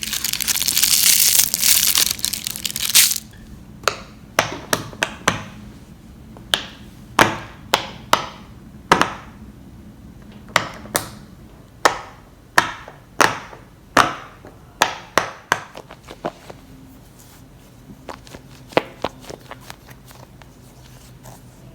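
Fidget toys being handled: a rough crunching noise for about the first three seconds, then a string of sharp snaps and clicks, roughly one a second, thinning out near the end.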